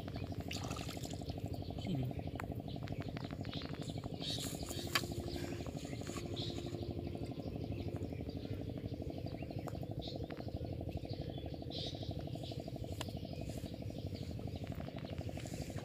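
Pond-side outdoor ambience: a steady, rapidly pulsing low drone throughout, with scattered short bird chirps and a few sharp clicks over it.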